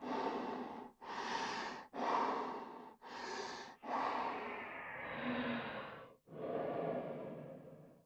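Human breathing sound effect: a run of breaths in and out, about one a second, slowing to two longer breaths in the second half.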